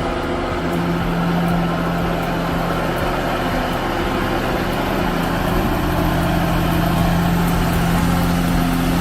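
Large diesel engine of heavy machinery running steadily at an even speed.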